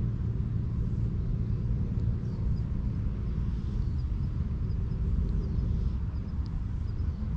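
Calico cat purring steadily in a low rumble while its head is stroked.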